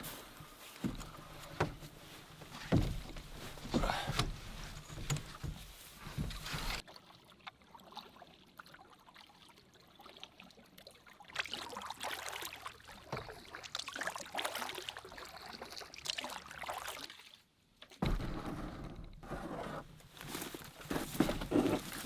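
Canoe being paddled: paddle strokes in the water with scattered knocks, broken by several abrupt cuts.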